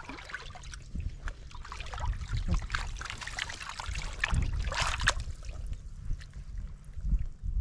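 Water sloshing and trickling as hands grope under submerged stones in a shallow pool, with a louder stretch of splashing about four and a half seconds in.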